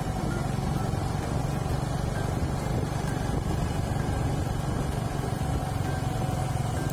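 Steady running noise of a small engine or motor, even throughout with a low hum.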